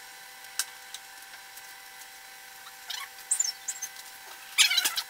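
Wooden spoon stirring vegetables in a frying pan: scattered clicks and scrapes, a few short high squeaks about three seconds in, and a louder crackling scrape near the end, over a faint steady hum.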